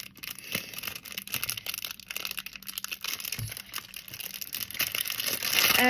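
A small mail-order package being opened by hand: its wrapping crinkles and tears in an irregular, continuous crackle that grows louder near the end.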